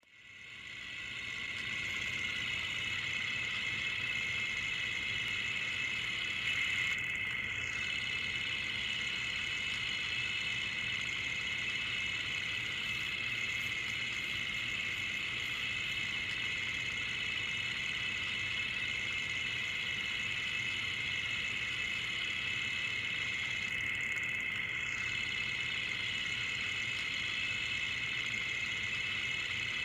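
Film projector running: a steady, fast mechanical clatter that fades in over the first second and then holds level.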